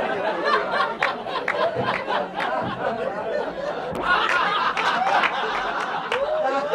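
Live audience laughing, many voices at once, in response to a joke's punchline, with the laughter swelling again about four seconds in.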